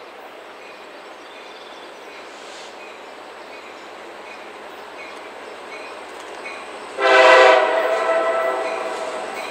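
A diesel freight locomotive's air horn sounds one long, loud blast about seven seconds in, trailing off toward the end. Before it there is the low, steady rumble of the train approaching on the rails.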